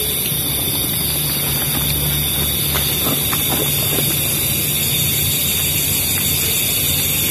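Steady loud hiss with a low hum beneath it and a few faint ticks.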